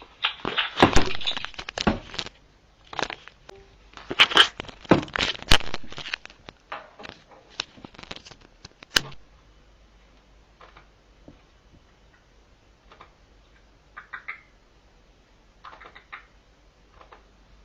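Irregular knocks and clatters, loud and bunched together over the first six seconds or so, with a sharp click about nine seconds in, then only occasional faint clicks.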